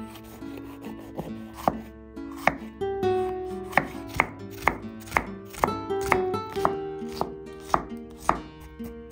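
Chef's knife chopping a red bell pepper on a wooden cutting board, a sharp knock each time the blade meets the wood, about two a second from about two seconds in. Soft background music plays underneath.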